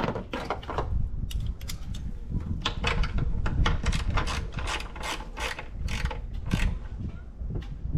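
Hand ratchet wrench clicking in short runs of strokes, tightening a nut on the manifold.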